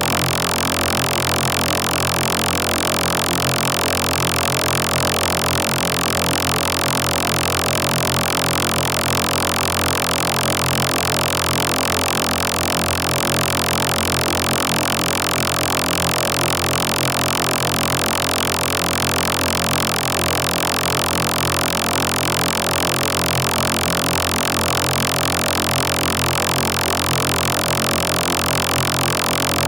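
Steady, unbroken electronic drone made of many held tones stacked from low to high, with no rhythm, pauses or change in level.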